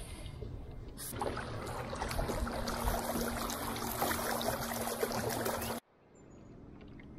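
Water rushing and splashing along a moving kayak's hull, getting louder about a second in, with a steady low hum joining a little later. It all cuts off abruptly about six seconds in.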